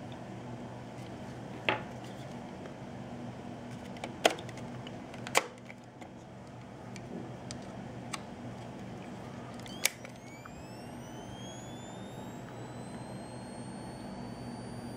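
A National PE-170 electronic flash is handled on a Meopta Optineta camera, giving several sharp clicks. About ten seconds in, a final click is followed by the flash's charging circuit whining: a high whine that rises in pitch and then levels off as the capacitor charges.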